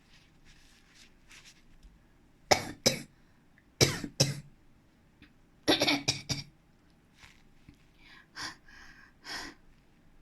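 A person coughing and clearing their throat to clear a hoarse voice. Three clusters of sharp coughs come about two and a half, four and six seconds in, followed by softer throat-clearing near the end.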